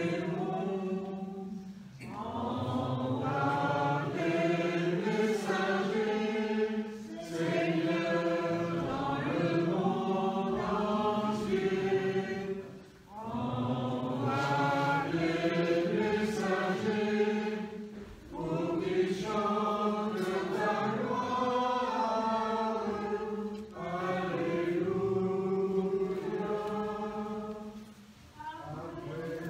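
A group of voices singing a sacred chant together, in sung phrases broken by short pauses for breath about every five seconds.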